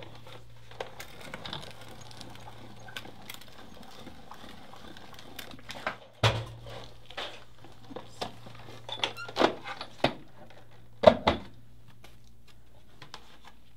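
Sizzix Big Shot hand-cranked die-cutting machine being cranked, the die and cutting-plate sandwich rolling through the rollers with a steady noise for about six seconds. Then come scattered clacks and knocks as the plates come out and are handled, the loudest about eleven seconds in.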